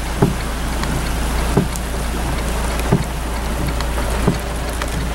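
Steady rain noise heard from inside a car, over a constant low hum. A soft thump comes about every second and a third, the even rhythm of windshield wipers on a slow setting.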